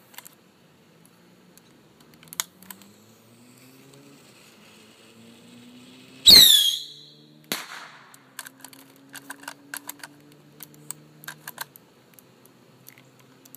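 A Whistler bottle rocket fired from a homemade revolver-style launcher: about six seconds in, a short, loud whistle falling in pitch, followed about a second later by a single sharp crack. Scattered light clicks come before and after, mostly in the later seconds.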